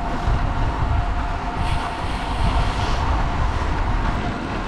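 Wind rushing over the microphone of a camera riding along on a road bike, over a steady low rumble of tyres on asphalt. A higher hiss joins for about a second, starting about a second and a half in.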